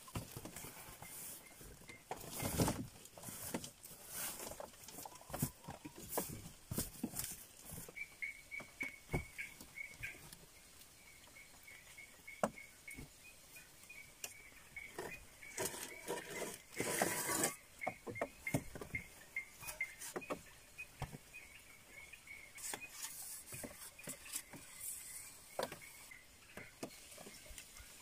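Irregular rustling, patter and handling noises as a person moves about a leaf shelter, working with bedding and bread dough. From about eight seconds in, a faint chirp repeats steadily behind them.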